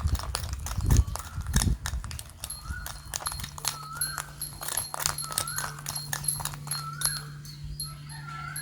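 Rapid clicking of a whisk beating dalgona coffee mixture (instant coffee, sugar and water) in a bowl. A short rising-and-falling squeak repeats about once a second, and a steady low hum starts a few seconds in.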